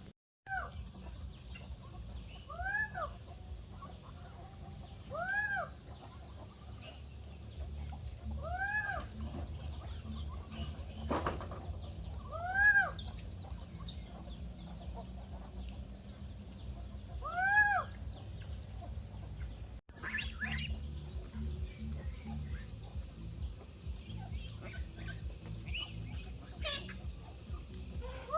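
Chickens calling: one bird gives a single rising-and-falling call every few seconds over a low steady rumble. After about twenty seconds it gives way to shorter, scattered chirps and clucks.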